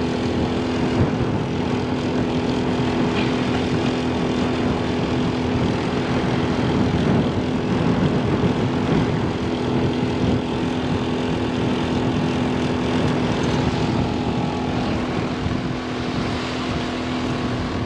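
A steady motor hum that holds one pitch throughout, under a constant rushing haze of noise.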